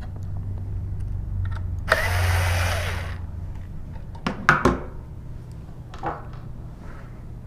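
Power screwdriver whirring for about a second as it backs out the last fastener holding the instrument's front panel, followed by a few sharp clicks of the screw and panel being handled.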